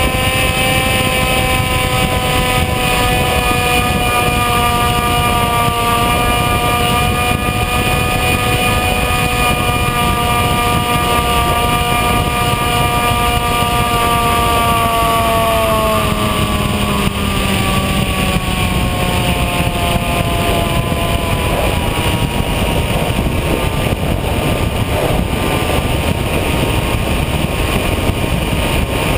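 Whine of the Bixler's electric motor and propeller, recorded on board, over wind rushing past the microphone. The whine holds steady, then drops in pitch and fades about halfway through as the throttle comes back, leaving mostly wind, and rises again near the end.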